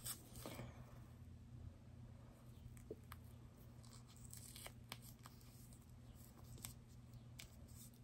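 Faint ticks and crackles of cloth wiring-harness tape being peeled off its roll and wrapped around a pair of wires, over a low steady hum.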